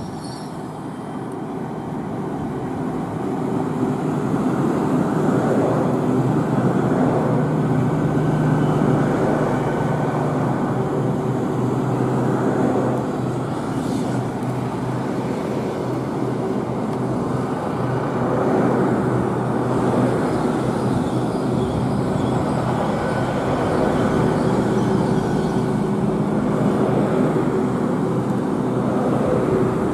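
GWR Intercity Express Train passing beneath a bridge, running on its underfloor diesel engines. A steady engine drone over wheel-on-rail noise builds over the first few seconds and then holds.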